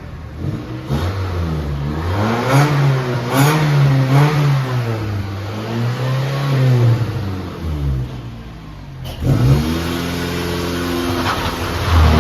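Car engine revving hard for a burnout attempt. The revs rise and fall for several seconds, drop off about two-thirds of the way through, then climb again and hold high near the end.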